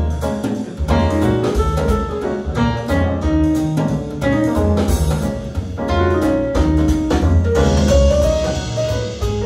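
Jazz music with a strong, deep bass line, played back through Vimberg Tonda loudspeakers.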